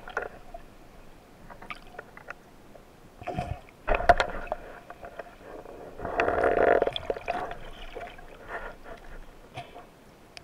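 Underwater water noise picked up by a camera in its housing: scattered clicks and knocks, a cluster of them about four seconds in, and a gurgling swell lasting about a second near the middle.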